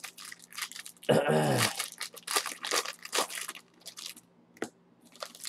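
Hands crinkling and tearing the plastic-foil wrapper of a baseball card pack, with a run of short crackles. About a second in, a loud short sound falls in pitch.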